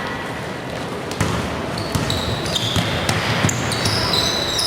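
Basketball game play: a basketball bouncing on the court a few times, with sneakers squeaking on the gym floor over the general noise of the hall.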